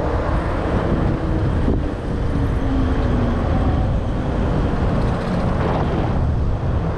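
Wind buffeting the microphone of a camera on a moving electric bike, a steady low rush with road noise under it. Over the first few seconds a faint whine slides down in pitch.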